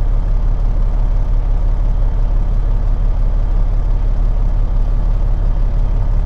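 Peterbilt 379 semi truck's diesel engine idling steadily, heard from inside the cab.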